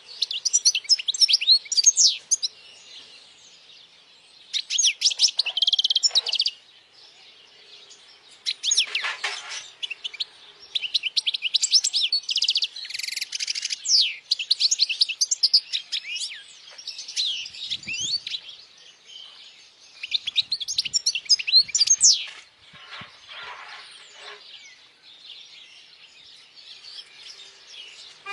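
European goldfinch singing: phrases of fast, high twittering a few seconds long, broken by short pauses.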